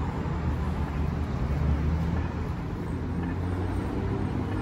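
Street traffic: a steady low rumble of buses and cars passing on a wide city road.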